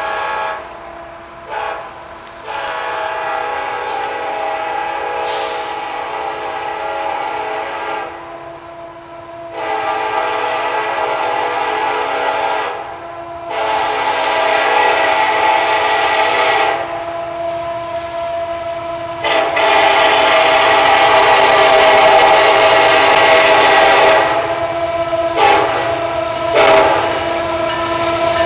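Diesel freight locomotive's air horn sounding a series of long blasts with short breaks between them. It is loudest in the last third, where it cuts out and comes back twice in quick succession.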